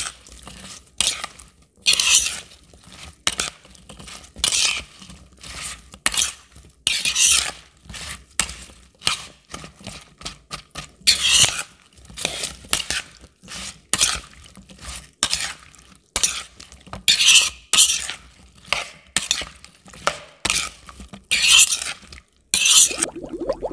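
Metal spoon tossing sliced bitter gourd and onion in a bowl: repeated irregular scraping and clinking strokes against the bowl, about one or two a second.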